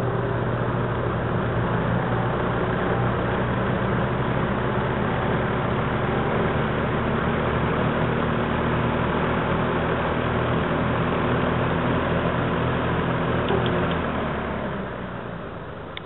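Lakewood S-23 box fan running steadily: a loud rush of air from the blades over a low motor hum. The sound dies away over the last two seconds.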